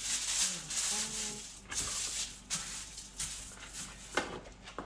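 Aluminium foil rustling and crinkling in a series of short bursts as it is handled over a baking tray.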